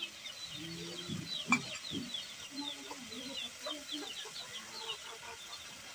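Chickens clucking, with many short high chirps from small birds throughout and a single sharp knock about one and a half seconds in.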